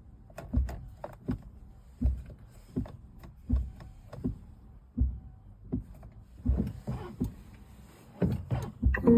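Fisker Ocean windscreen wipers sweeping back and forth non-stop, a thump at about every three-quarters of a second as the blades reverse; they are stuck on and will not switch off because of a software hang-up.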